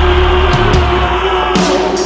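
Background music with long sustained notes.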